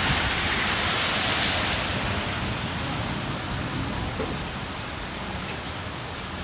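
Steady rain falling and splashing on surfaces, a continuous hiss that eases a little after about two seconds.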